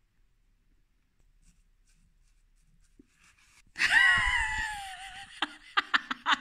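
Near silence, then about four seconds in a loud, high-pitched whining wail from a person's voice, falling in pitch over about a second and a half: mock sorrow over the last bite of food. Laughter-like bursts follow near the end.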